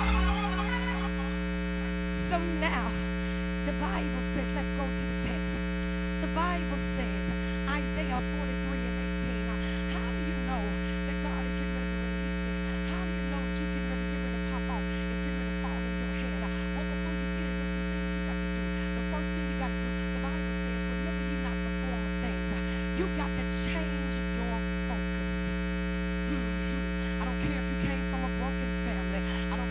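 Steady electrical mains hum with a buzzy stack of overtones, with faint scattered sounds and light clicks over it.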